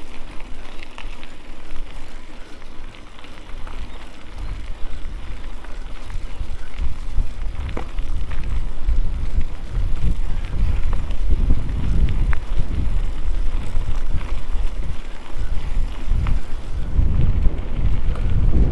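Wind buffeting the microphone over the rattle and rumble of a mountain bike riding rough trail, with scattered sharp clicks. The rumble grows louder about halfway through and comes in gusts.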